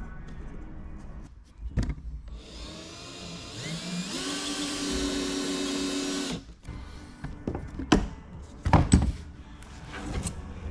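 An electric power tool's motor spins up, rising in pitch, runs steadily for about four seconds and stops, followed by several sharp knocks as the old boat floor is torn out.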